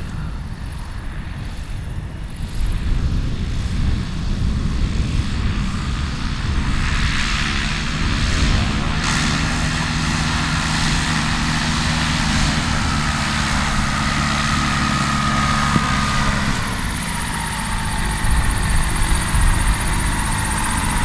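Light propeller aircraft's piston engine running, a steady propeller drone whose note shifts about halfway through and again later on.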